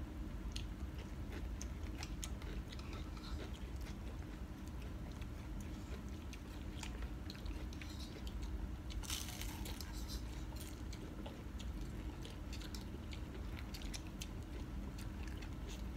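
Mouth sounds of people eating pho: chewing and slurping noodles and broth. Scattered light clicks of chopsticks and spoons on ceramic bowls run throughout, with a longer noisy stretch about nine seconds in.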